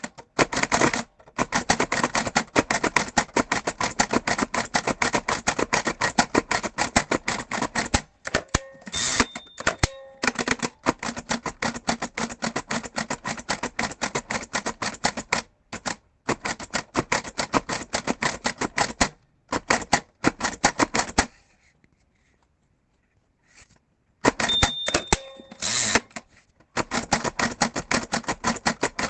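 Mechanical braille writer being typed on quickly, its keys clacking in fast, uneven runs with short pauses and one longer pause of about three seconds two thirds of the way through. Twice there is a brief ringing tone, like the machine's line bell, followed by a clunk.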